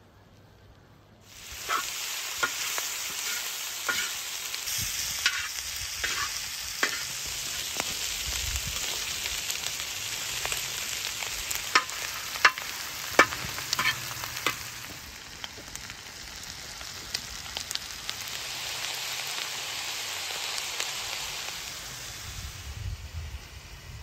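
Beef kidney, onions and sliced mushrooms sizzling in a wide round metal pan, the sizzle starting suddenly about a second in. A metal skimmer scrapes and clinks against the pan as the food is stirred, with the clinks mostly in the first half. The sizzle eases off near the end.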